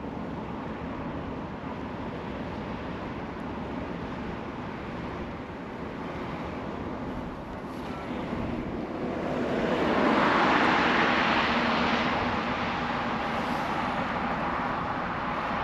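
Steady rumble of a large ship's diesel engine and wind as it creeps into a canal lock. About nine seconds in, a rushing noise swells up, peaks and slowly eases off.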